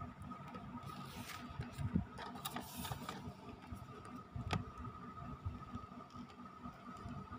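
A cardboard box being handled close to the microphone: brief rubbing and scraping against the card and a couple of sharp taps, over a low handling rumble and a faint steady whine.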